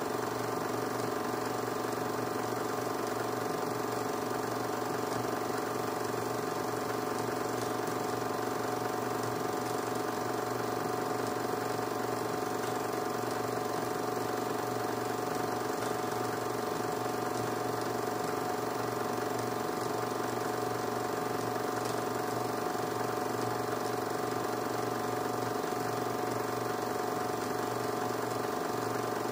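A film projector running steadily, an even mechanical whirr with a fixed hum.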